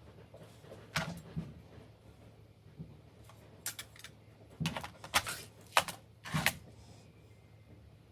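Irregular sharp clicks and taps of small laptop parts being handled during disassembly, in a few clusters with the busiest stretch in the second half.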